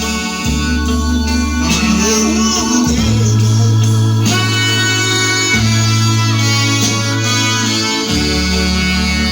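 Music with a deep bass line, each note held for two to three seconds before changing, under higher chords.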